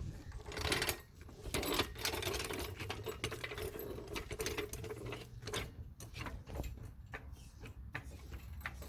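Rapid, irregular metallic clicking and ticking from tools being worked on the front suspension to free the stuck sway bar end link, with a couple of louder scrapes in the first two seconds.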